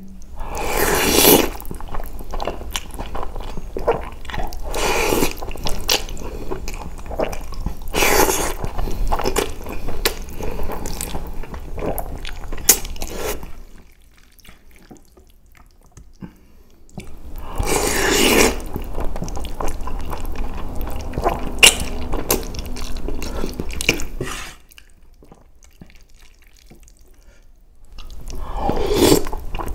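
Close-up slurping and chewing of spaghetti bolognese: about five loud slurps as long strands are sucked into the mouth, with wet chewing in between and two short quieter pauses.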